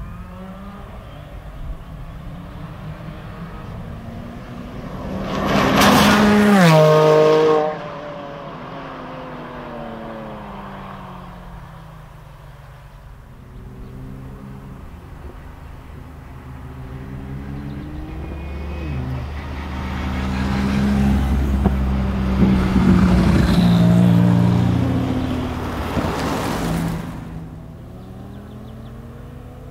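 Tuned high-powered cars accelerating hard in drag runs, among them the 900 hp 9ff Porsche 997 Turbo S. A loud pass comes about five to seven seconds in, its pitch falling as it goes by, and cuts off abruptly. A second run builds from about seventeen seconds in, the engine notes climbing through several gear changes and loudest from about twenty to twenty-seven seconds.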